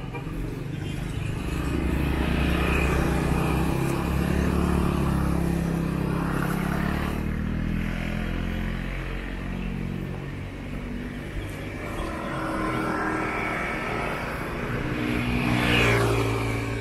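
Street traffic: cars and motorcycles driving past one after another, with engine noise swelling and fading. The loudest passes close by near the end.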